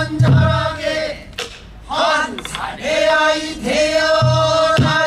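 Male pansori singer's voice singing two long, held phrases with wavering pitch, separated by a short pause.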